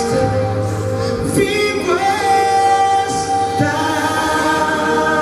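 Christian worship music: a female singing voice holds long notes over a full band, with no words made out.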